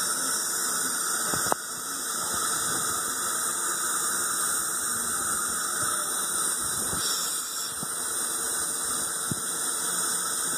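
Steady hissing of a dental saliva ejector drawing air and saliva through its tube in the mouth. A faint click about a second and a half in, after which the hiss drops slightly.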